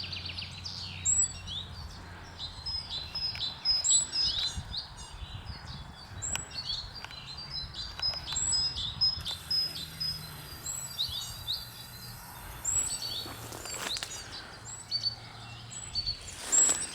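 Small birds chirping over and over, short high calls repeating every fraction of a second, over a faint low hum; a brief rustling noise near the end.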